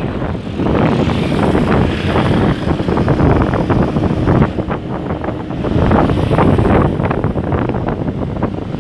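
Wind rushing over the microphone of a phone on a moving motorcycle: a loud, uneven rush of noise with repeated short surges, mixed with the bike's running and road noise.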